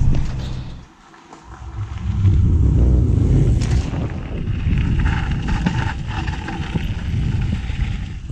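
Van cab road noise that drops away about a second in, then wind buffeting the microphone and bicycle tyres crunching and rattling over a gravel path as the bike rolls along.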